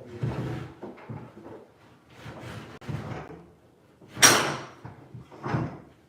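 Wooden knocks and thuds from woodwork, several in a row, the loudest and sharpest about four seconds in, with another heavy one about a second later.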